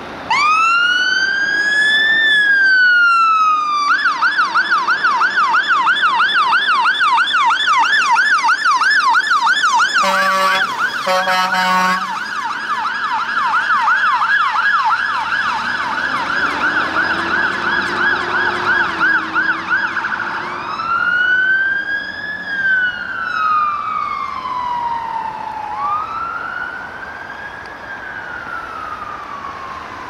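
Volvo FL fire engine's siren starting with a rising wail, switching to a fast yelp about four seconds in, with two blasts of the air horn a few seconds later. It then goes back to a slow wail that grows fainter as the engine drives off.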